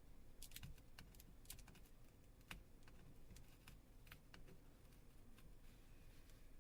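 Faint, irregular small clicks and taps, like a tool touching a phone's small parts during disassembly, several a second at first and sparser toward the end.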